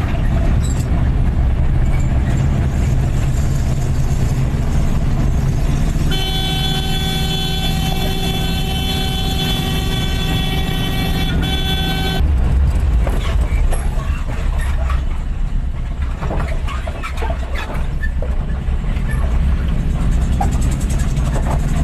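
Engine and road rumble heard inside a car while driving, with a vehicle horn blown steadily for about six seconds in the middle, breaking briefly just before it stops.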